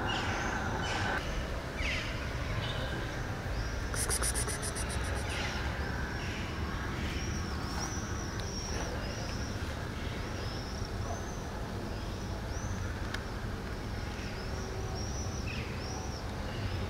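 Outdoor bird sounds over a steady low background noise: a crow's caw trailing off in the first second, then a small bird repeating a short high chirp about once a second.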